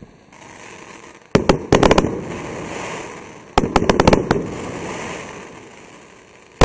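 Automatic firework battery (cake) firing: two volleys of several quick bangs, about a second and a half in and again near four seconds, each dying away slowly. A single big bang comes at the very end.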